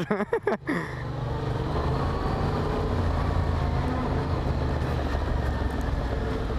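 Yamaha MT-07 motorcycle's parallel-twin engine running steadily while the bike rides along, its steady note setting in about a second in.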